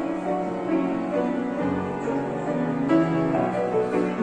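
Grand piano being played: held chords over bass notes that change every second or two.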